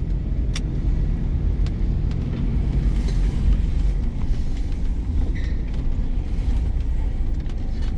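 A car engine running with a steady low rumble, with a few faint light clicks.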